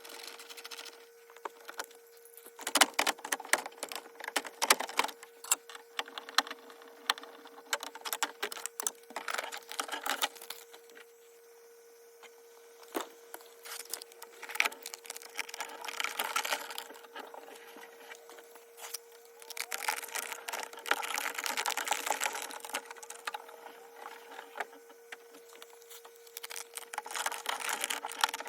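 Irregular clicks, taps and rustling from hand work, in several busier stretches, over a faint steady hum.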